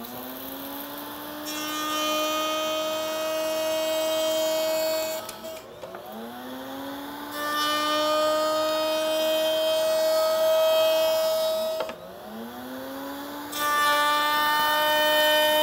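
Table-mounted router running three times over, about six seconds apart. Each time its whine rises to a steady pitch, and a moment later a louder rush joins it as the spinning profile bit cuts into the board's edge: three passes, each a little deeper, building up the full profile.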